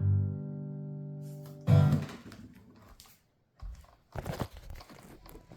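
Acoustic guitar's last chord ringing out, then cut off by a sudden loud thump about two seconds in as the strings are stopped. Scattered rustling and handling noises follow.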